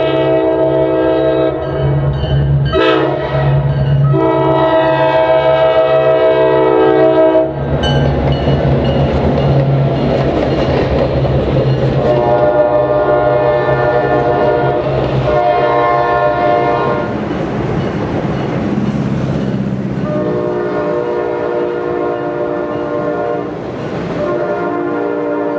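Diesel locomotive horn blowing long blasts with short breaks for a grade crossing. About eight seconds in the locomotives' engines pass close by in a heavy rumble, followed by passenger cars rolling along the rails while the horn sounds more blasts.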